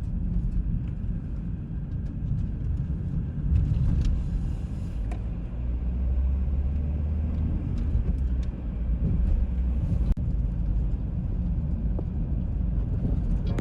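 Steady low rumble of a moving motor vehicle, swelling a little midway.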